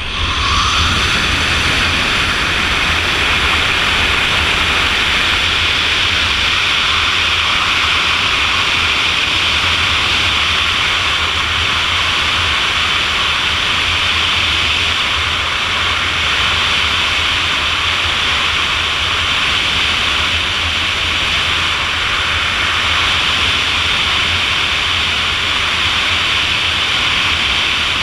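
Loud, steady rush of wind over an action camera's microphone during wingsuit flight, rising to full strength within the first half second after the exit.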